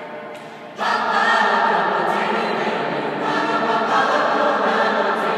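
High school choir singing a cappella: softer singing, then the full choir comes in loudly a little under a second in and holds on.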